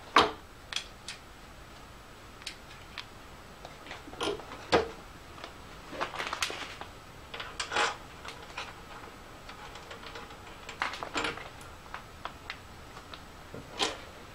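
Motorcycle radiator with chrome cowls being handled and worked onto its mounts: scattered metal clicks, taps and knocks, the loudest just after the start and about five seconds in.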